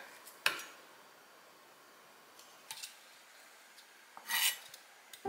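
Kitchen knife cutting notches into a fresh lotus root on a wooden cutting board: a sharp tap of the blade about half a second in, a couple of faint ticks, then a crisp slicing sound lasting about half a second near the end.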